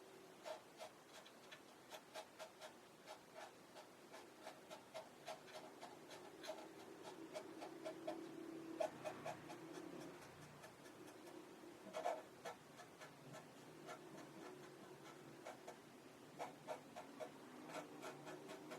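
A run of light, quick clicks and taps, about two to three a second and not quite even, over a faint low hum.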